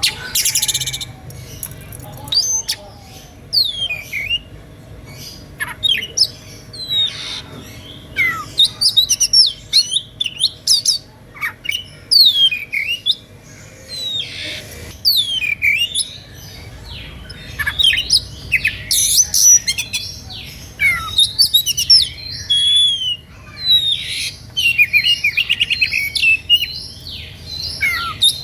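Oriental magpie-robin (kacer) singing a fast, varied song of loud whistles and sweeping notes, with a quick buzzy trill near the end. It is singing in an excited, aggressive state that keepers call "ngeplay emosi", a song that provokes rival magpie-robins hearing it to answer.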